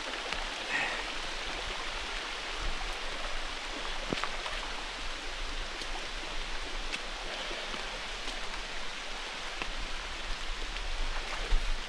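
Small woodland waterfall running in a steady rush of water, with rain falling over it and scattered sharp drop ticks.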